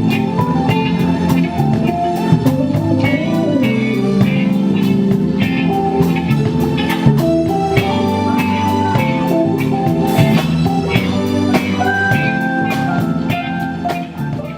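Live band playing an instrumental blues-soul groove, led by guitar over keyboards and drums with a steady beat. It fades down near the end.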